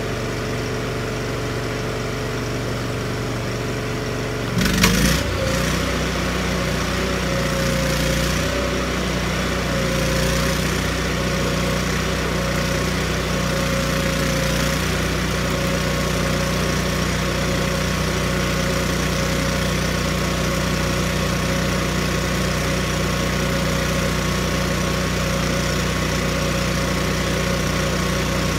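Miller Bobcat 250 engine-driven welder running at idle, then picking up speed with a sudden crackle about five seconds in as the welding arc is struck. It holds a steady, higher-pitched run under welding load, with the arc crackling over it.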